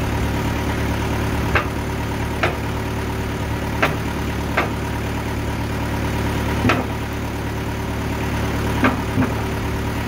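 Portable bandsaw sawmill's engine idling steadily, with seven sharp knocks and clanks scattered through it as two flat-sided logs are shifted and wrestled into place on the mill bed.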